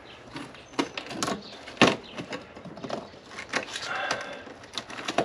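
Irregular knocks, clicks and scraping of hands working at rusty floor metal and loose debris in a car's footwell.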